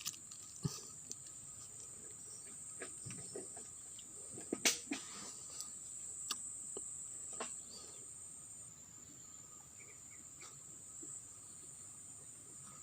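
Steady high-pitched chirring of crickets, with a few scattered sharp clicks and knocks.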